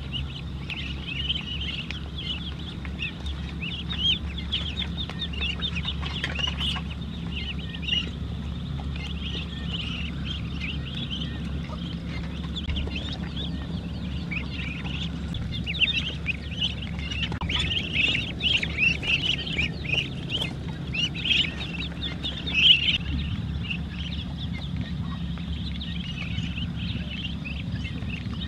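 A flock of ducklings peeping continuously as they feed, many short, high-pitched cheeps overlapping, busiest a little past the middle.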